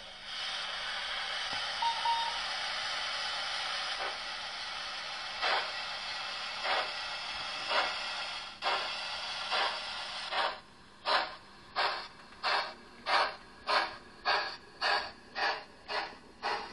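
Sound decoder of a Hornby Rivarossi HO model of an FS Gr 741 steam locomotive playing a steady steam hiss, then exhaust chuffs that come faster and faster as the train pulls away, from about one a second to nearly three a second.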